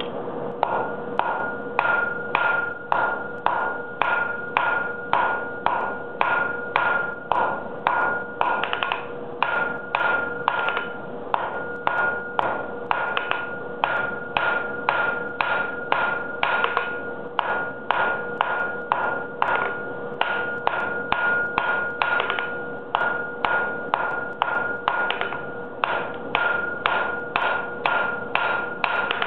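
Hand hammer striking a red-hot bar on a steel anvil in a steady rhythm of about two blows a second, each blow ringing off the anvil.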